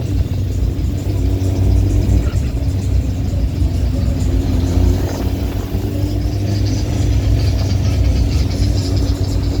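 Car engines running steadily, the sound heavy in the low end, with no sharp revs or breaks.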